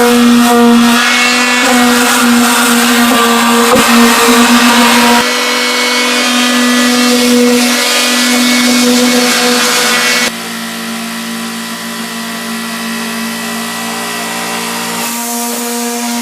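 Electric sander's motor running steadily with a hum and a hiss. The sound shifts abruptly three times, about five, ten and fifteen seconds in, and is quieter after the second change.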